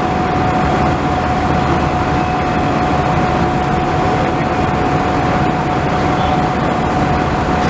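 Steady, loud heavy-machinery din from a ship-to-shore container crane holding a slung load, with a low rumble and a constant high-pitched whine.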